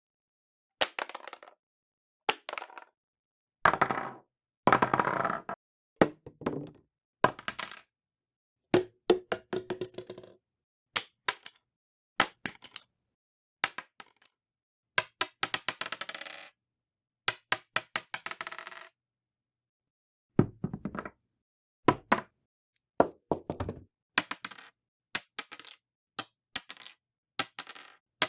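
A series of separate recordings of small hard objects dropped onto a hard surface: each one hits, bounces and clatters, some rattling or rolling for a second or two before settling, with short silences between drops. Some impacts ring with a sustained tone, and near the end sharp ringing clicks come about once a second.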